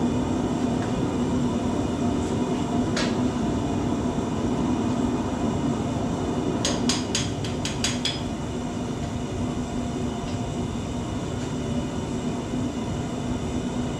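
A propane forge burner running steadily, with one sharp metallic clink about three seconds in and a quick run of about seven clinks a little past halfway as a hot Damascus billet in tongs is knocked against the forge.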